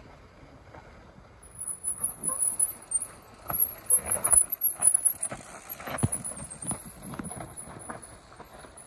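Mountain bike clattering down a rough, rooty dirt trail past the camera: irregular knocks and rattles from the tyres, frame and suspension hitting roots, loudest as the rider passes close.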